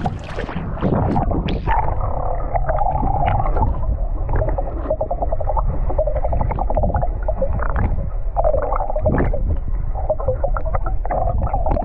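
Muffled underwater sound heard by a camera held under the sea surface: water gurgling and sloshing over a low rumble, with many small clicks and knocks.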